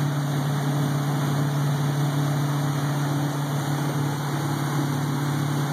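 Motorboat engine running steadily at cruising speed, a constant low drone, over the rushing of the boat's churning wake.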